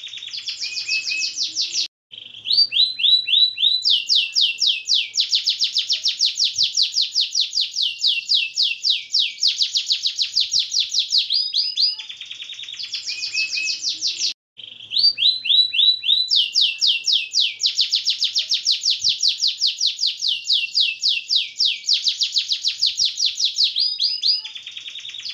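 Domestic canary singing long, rapid rolling trills of high repeated notes, changing from one roll to the next. The song cuts out for an instant about two seconds in and again about halfway through.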